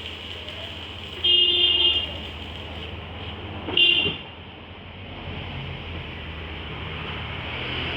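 Two toots of a vehicle horn: the first lasts under a second, the second is shorter, over a steady low engine hum.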